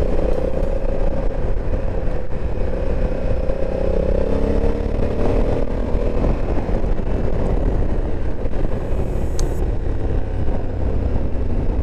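Honda Africa Twin 1100's parallel-twin engine running under way, with road and wind noise. The engine note rises as the bike gathers speed over the first half, then falls away as it slows.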